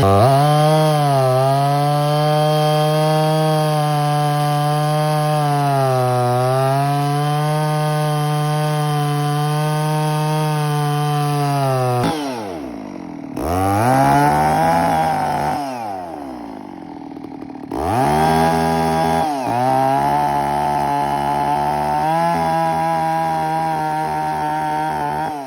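Stihl 066 two-stroke chainsaw with a 28-inch bar running at high revs under load, as when ripping a log lengthwise in a chainsaw mill. Its pitch sags slightly twice in the cut. About halfway through, the throttle drops off, then it revs back up twice.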